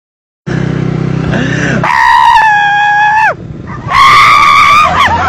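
After a brief silence, a low steady hum, then two long, high-pitched human screams: the first about a second and a half long, breaking downward at its end, the second starting about four seconds in and wavering.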